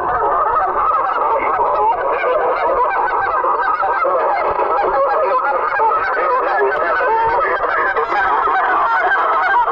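A large flock of geese honking, many calls overlapping in a dense, unbroken clamour.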